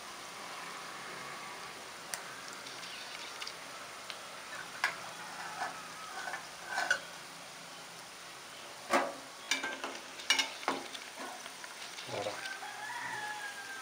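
Cabbage and onion bondas deep-frying in hot oil: a steady sizzle with sharp pops and clicks every now and then. The fritters are still cooking through before they turn golden. Near the end a slotted metal spoon stirs through the oil.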